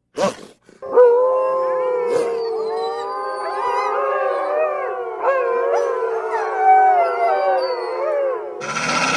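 A pack of wolves howling together, several voices overlapping with long wavering howls at different pitches after a short yelp at the start. A rough, noisy growl-like call cuts in near the end.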